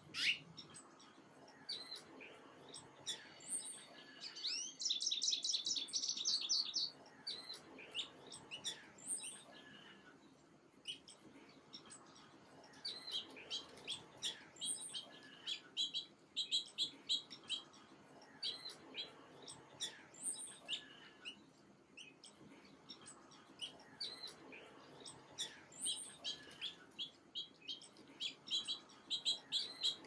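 Small songbirds chirping: scattered short, high chirps, with a quick twittering run from about four to seven seconds in and denser chirping again near the end. A single sharp sound right at the start.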